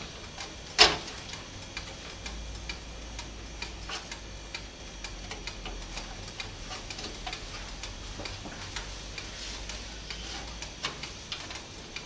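Light clicks and taps of a motherboard being positioned onto its standoffs inside a Fractal Design Core 1000 steel PC case, with one sharper click about a second in.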